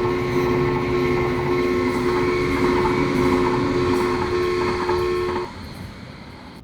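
A train running, with two steady tones held over its rumble; both cut off suddenly about five and a half seconds in, leaving a quieter rumble.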